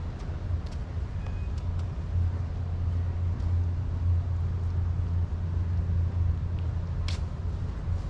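Steady low engine rumble of a nearby motor vehicle, with a few faint high clicks over it.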